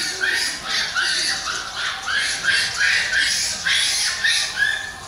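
Mini pigs squealing: short, harsh, high squeals repeated about two to three times a second.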